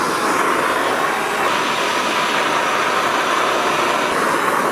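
Handheld gas blowtorch burning with a steady hiss as its flame is swept across a plywood sheet, scorching the surface dark.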